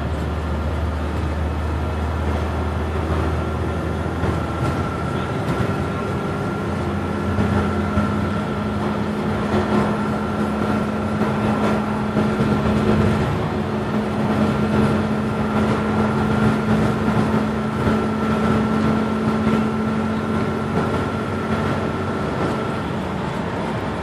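Inside a moving 2007 Blue Bird Vision school bus, its Caterpillar C7 inline-six diesel pulls steadily over road noise. Its low hum climbs to a higher, steadier note about six seconds in and holds there. A faint thin whine runs through it.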